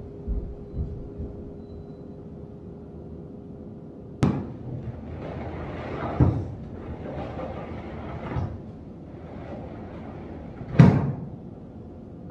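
A sharp knock about four seconds in, then rustling with a few softer thuds, and a loud knock near the end.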